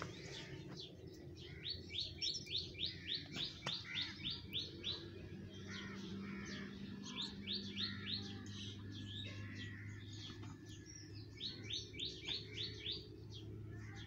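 A bird calling in runs of quick, sharp chirps, about four a second, three runs in all with short pauses between them.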